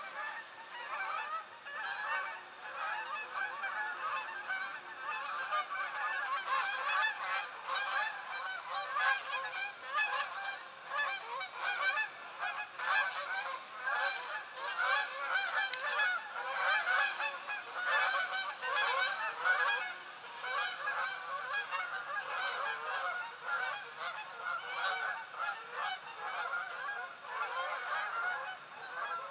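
Large flocks of geese flying overhead, honking continuously with many calls overlapping.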